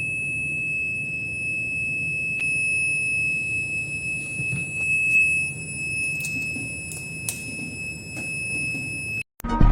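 Conventional fire alarm control panel's buzzer sounding one continuous high-pitched tone, with a few faint clicks. It cuts off suddenly near the end.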